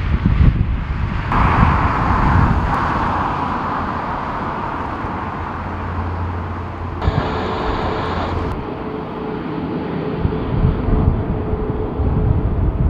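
Airliner jet engines running, with gusty wind buffeting the microphone as a low rumble. The sound changes abruptly several times; one stretch of engine roar is followed by a steadier engine whine with a thin tone.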